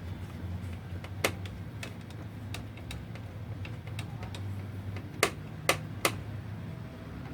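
Sharp clicks and light ticks of small computer hardware being handled and fitted during PC assembly: one click about a second in and three in quick succession near the end, over a low steady hum.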